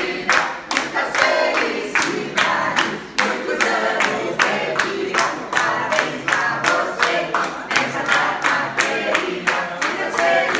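A group of party guests singing a birthday song together, clapping along in a steady rhythm of about three to four claps a second.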